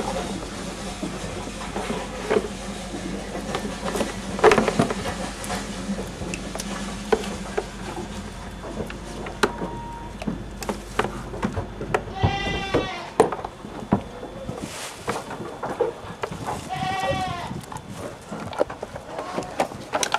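A Saanen dairy goat bleats twice, each a wavering call about a second long, the first a little past the middle and the second a few seconds later. Scattered clicks and knocks from equipment being handled run throughout.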